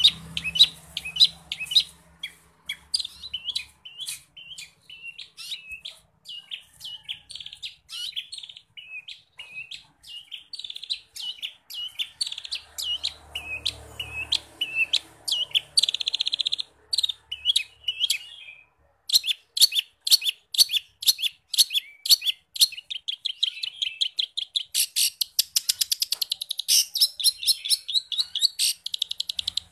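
Long-tailed shrike (cendet) singing non-stop: a rapid chatter of short high chirps and whistled notes, full of phrases mimicked from other birds. After a brief pause about two-thirds of the way through, it breaks into fast, dry, rattling runs of sharp notes.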